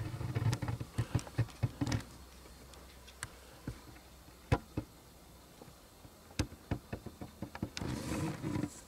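Scattered light clicks and ticks of handling and movement noise from a handheld camera being carried, with a low rumble among them in the first two seconds and a denser rustle near the end.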